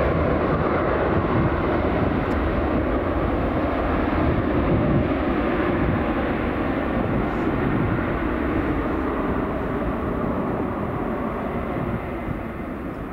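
Departing airliner's engines running at take-off power, a steady broad rumble that slowly fades near the end as the aircraft climbs away.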